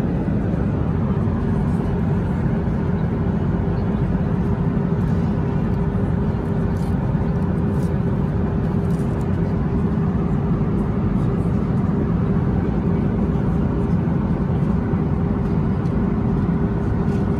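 Steady cabin noise inside a Boeing 737-800 in flight: its CFM56 turbofan engines and the airflow over the fuselage make an even rush with a steady hum running through it.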